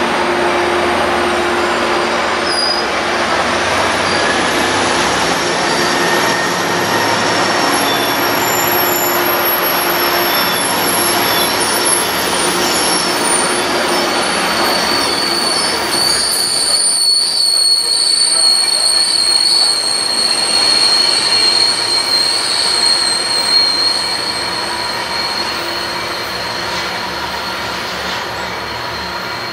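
Metrolink commuter train of bilevel passenger cars rolling along the track, steel wheels running on the rails with a high-pitched wheel squeal that is strongest past the middle. The sound fades over the last few seconds as the train moves away.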